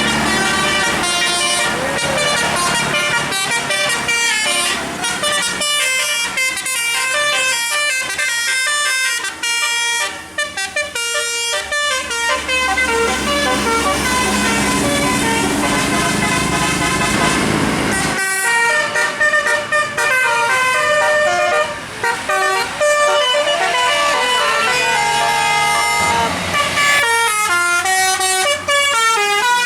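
Bus telolet musical air horns playing fast tunes of short stepped notes, one tune after another.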